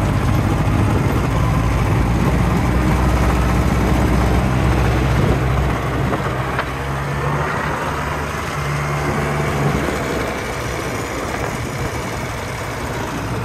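Polaris ATV engine running while being ridden along a dirt track, its note shifting as the speed changes.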